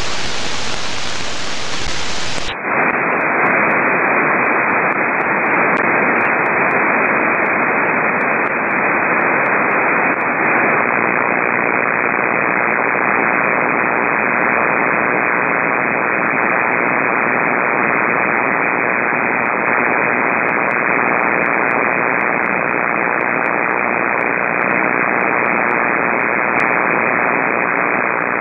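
Heavy power line noise on the 6 m band heard through a Flex 5000A receiver: a loud, steady hiss of static with no signal. About two and a half seconds in, the hiss loses its top end and goes on duller as the receiver's narrow passband cuts it off.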